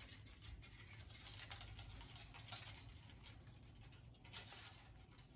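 Faint, scattered scratches and rustles from hands handling a small spool of bare copper wire, over a low steady hum.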